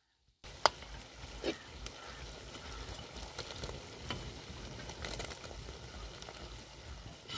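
Onion and garlic frying in hot oil in a pan, a steady low sizzle that begins about half a second in. The food is being stirred, with a few sharp clicks from the utensil.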